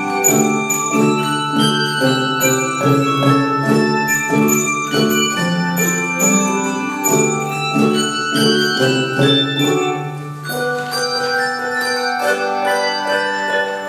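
Instrumental music played on tuned bells: many struck notes ringing on in a quick melody, thinning to fewer, longer-held notes about ten seconds in.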